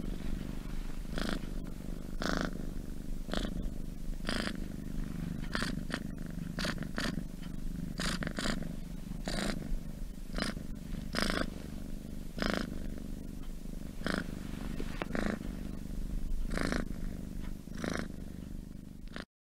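Domestic cat purring steadily, with a louder stroke about once a second; it cuts off suddenly just before the end.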